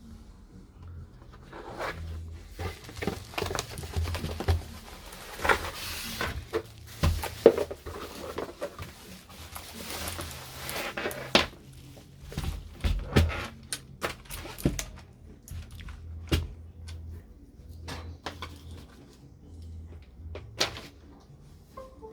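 A mechanical gaming keyboard being handled: rustling and sliding with clicks for the first half, then scattered, irregular sharp clicks and knocks, not the quick even run of typing.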